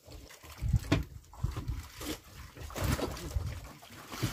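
Irregular knocks and thumps with water splashing around a small fishing boat.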